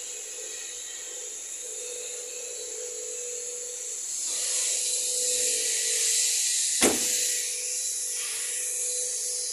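Small van's engine running, heard close to the open engine bay as a steady hiss with a high whine and a steady hum. It grows louder about four seconds in. A single sharp click comes about seven seconds in.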